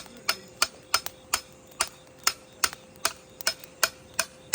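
Small camping axe knocking on firewood in quick, light, even blows, about two to three a second, splitting kindling.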